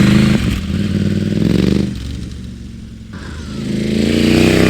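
KTM 790 Adventure R parallel-twin motorcycle with an Akrapovic exhaust making a slow drive-by: the engine pulls hard, eases off for about a second, then revs up again with rising pitch.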